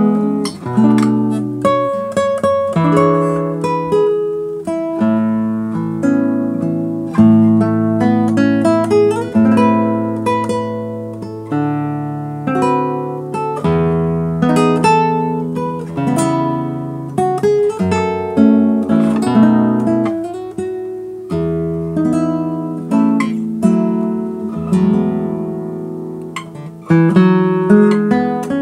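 Classical nylon-string guitar played solo fingerstyle: plucked chords and melody notes over bass notes, each note left to ring and decay.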